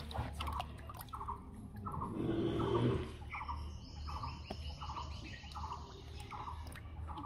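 A short bird-like call repeating about twice a second over a low steady hum, with a louder noisy swell between two and three seconds in. Scattered water splashes come from fish thrashing in a shallow tarp-lined tub.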